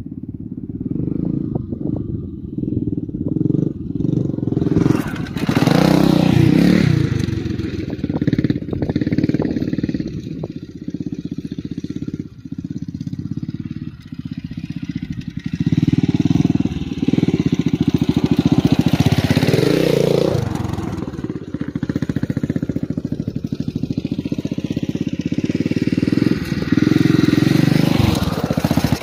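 A 1980 Honda XR500R dirt bike's single-cylinder four-stroke engine revving up and down as it is ridden around, swelling and fading several times. It is loudest near the end as the bike passes close.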